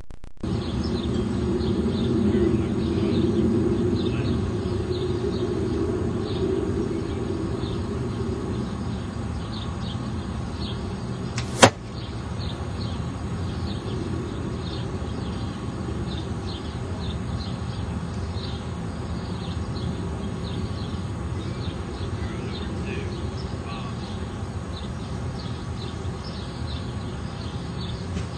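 An arrow shot from a bow: a single sharp crack about twelve seconds in, over a steady background hiss.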